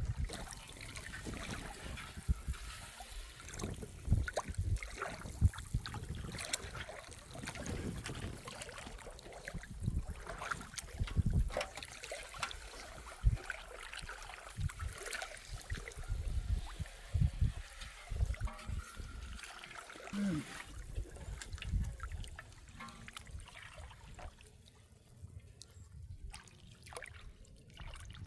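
Water trickling and splashing, with irregular knocks and low thumps throughout, quieter for the last few seconds.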